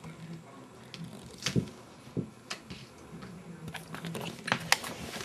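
A cat playing on a hard kitchen floor: scattered taps, scuffs and clicks of paws and claws, getting busier near the end as it rolls onto its side beside a plastic bag.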